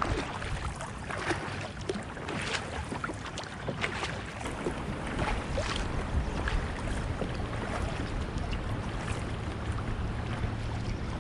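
Fast shallow river current rushing over a rocky shoal, with irregular splashing in the water.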